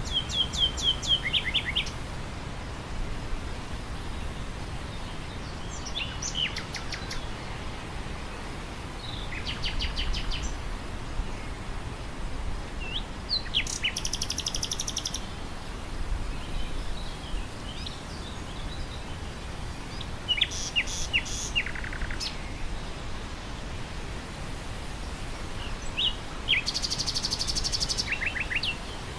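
Nightingale singing in short phrases of rapid repeated notes and trills, about six phrases separated by pauses of several seconds, over a steady hiss of wind through grass.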